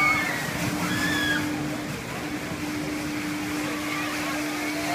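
Swinging amusement-park gondola ride in motion: a steady mechanical hum and a rushing noise, with a few riders' cries in the first second or so.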